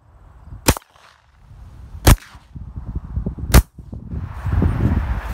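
Three gunshots about a second and a half apart, each a short sharp crack, with a low rumble between them that grows louder toward the end.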